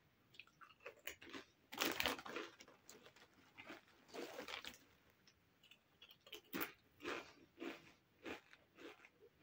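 Close-up chewing of Doritos Nachos tortilla chips: crisp, irregular crunches, with clusters about two and four seconds in, then single crunches about every half second toward the end.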